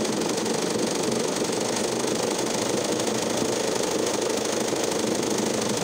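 Sewing machine running steadily at speed with a fast, even needle rhythm, stitching a small zigzag for machine embroidery.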